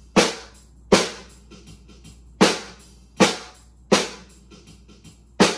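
Snare drum struck with drumsticks in single quarter-note strokes, about one every three-quarters of a second, six in all. A gap of about a second and a half after the second stroke is a two-count half rest in the beginner exercise.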